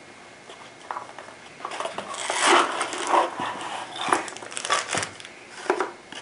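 A small cardboard box being opened and its packaging handled: irregular rustling with light clicks and taps.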